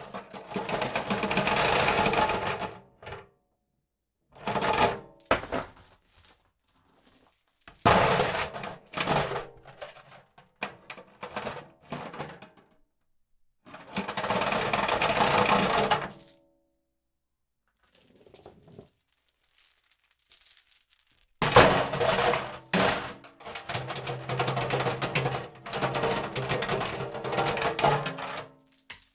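Metal chain dragged and rattled in a series of jingling, clattering runs of varying length, with short silences between them.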